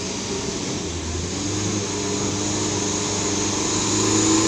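Mitsubishi Canter truck's diesel engine running, its revs and loudness rising gradually.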